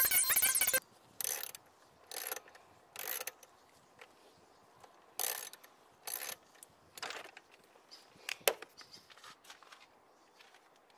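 Music cuts off just under a second in. Then a socket ratchet wrench loosens the muffler mounting bolt on a Yamaha Axis 90 scooter's crankcase: short ratcheting strokes about one a second, followed by lighter scattered clicks and one sharp metallic click near the end.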